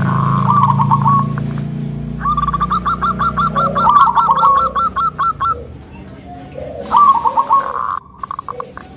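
Zebra dove cooing in rapid staccato notes: a short burst at the start, a long run of quick notes lasting about three seconds, and another short burst about seven seconds in.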